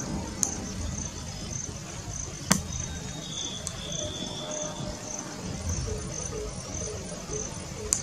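Insects chirring in a steady, high-pitched pulsing trill, with a few sharp clicks, the loudest about two and a half seconds in.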